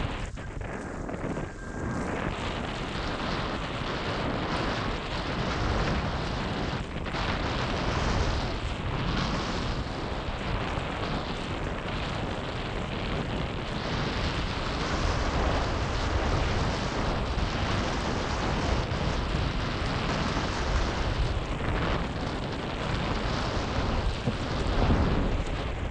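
Strong wind buffeting a camera microphone while windfoiling: a loud, steady rushing rumble that rises and falls in gusts.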